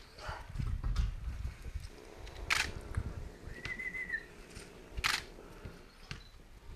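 Tabby cat hissing twice at a dog, two short sharp hisses about two and a half seconds apart, with a brief high whistle-like tone between them.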